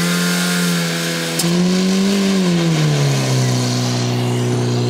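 Portable fire pump engine running hard just after starting. Its pitch climbs a little about two seconds in, then drops and settles to a lower steady speed about three seconds in.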